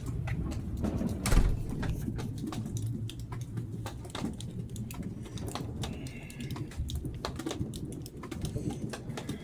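Distant fireworks going off over a steady low rumble: a run of scattered sharp pops and crackles, with one louder boom about a second and a half in.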